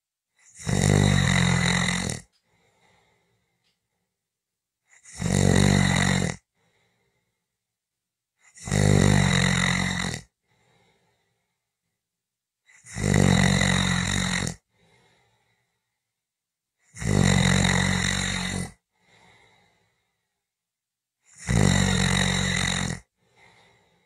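Snoring: six long snores, one about every four seconds, each lasting under two seconds, with near silence between them.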